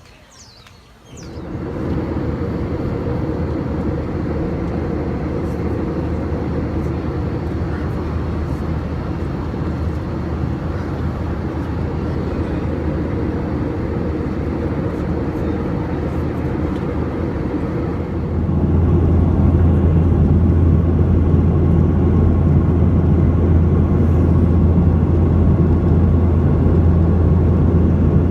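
Steady low vehicle rumble, starting abruptly about a second in and growing louder a little past halfway.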